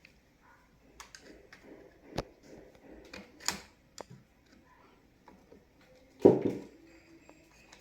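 Scattered clicks and knocks of a wall light switch's plastic housing and hand tools being handled, with the loudest knock about six seconds in.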